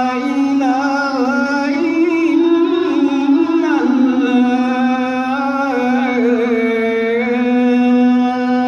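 A male muezzin chanting the Islamic call to prayer (adhan) into a microphone: one long sustained phrase, the pitch held steady, stepping up, then dropping through wavering ornamental turns.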